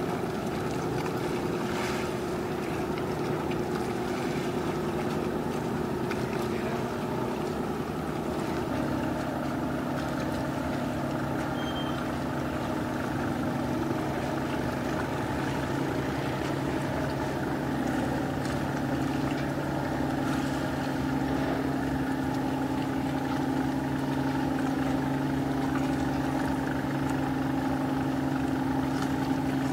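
Marine diesel engine running with a steady hum, mixed with the wash of water; the hum shifts to a lower pitch about nine seconds in.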